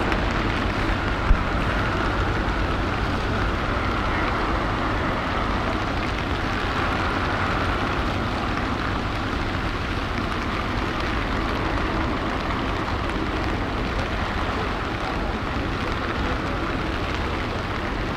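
Steady rushing noise of wind buffeting the microphone and rain in a storm, deep and rumbling, with one sharp knock about a second in.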